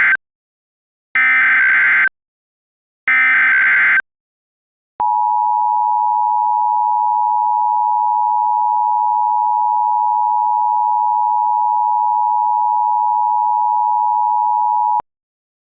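Emergency Alert System SAME header: the end of one burst of screeching digital data tones, then two more bursts of about a second each, separated by short silences. About five seconds in, the EAS two-tone attention signal starts, a steady harsh tone held for about ten seconds that cuts off abruptly, announcing that an emergency message is about to be read.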